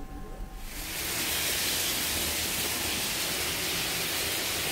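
Steady rushing hiss inside a shipboard firefighting training simulator, where fire is being fought. It starts abruptly under a second in and holds even and loud.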